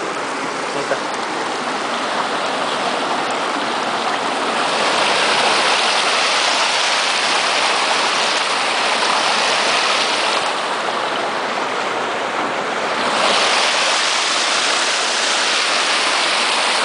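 Shallow, clear river water rushing and splashing over rocks in a small rapid, close to the microphone. The steady rush swells louder about a third of the way in, eases, then swells again near the end.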